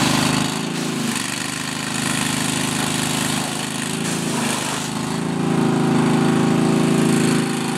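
Small gas engine of a pressure washer running steadily under load, with the hiss of the water jet from the spray wand. The engine grows louder about five seconds in.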